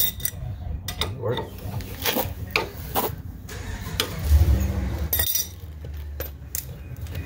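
Wrench working a stuck track bar bolt under a Jeep, with scattered metal clicks and knocks. A low rumble underneath swells about four seconds in.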